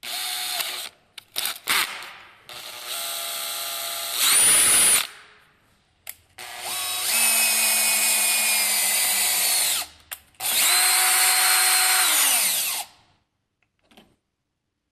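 Makita cordless drill/driver turning a lathe's feed handwheel through a 3D-printed power-feed adapter. The motor whines in several runs of a few seconds each, with a few short clicks early on, a brief faster stretch about four seconds in, and the last run winding down to a stop near the end.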